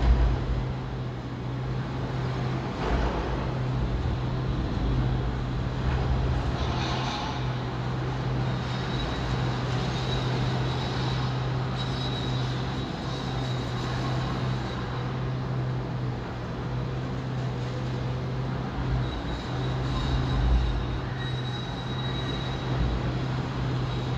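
Steady drone of a heavy diesel engine on demolition machinery, with a few low rumbles and knocks along the way.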